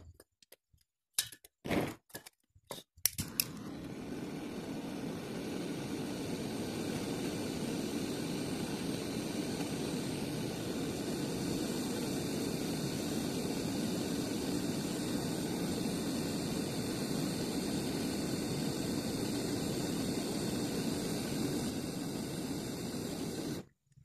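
Gas brazing torch flame burning with a steady rushing noise as a copper refrigerant pipe joint on a refrigerator compressor is brazed. It follows a few sharp clicks and knocks, and cuts off suddenly near the end.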